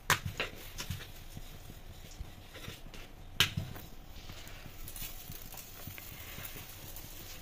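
Wooden rolling pin knocking and rolling on a bamboo chopping board as paratha dough is rolled out: a few sharp knocks at the start and a loudest knock about three and a half seconds in. A faint steady hiss follows in the second half.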